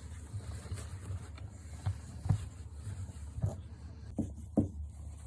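Two-month-old exotic bully puppy moving about, with rubbing and several short knocks, the loudest a little past two seconds in and shortly before the end, over a steady low hum.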